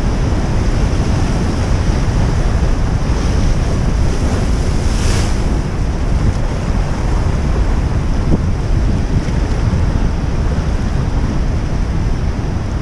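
Heavy surf breaking and washing over a rocky shore, with strong wind buffeting the microphone.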